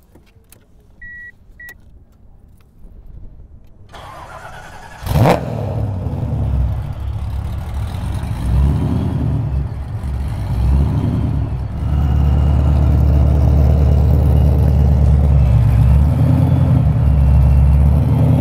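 The 240SX drag car's supercharged LS V8 is cranked over and fires a little over five seconds in, after two short beeps about a second in, then settles into a steady, healthy idle. From about twelve seconds in it is heard louder, close at the exhaust tip.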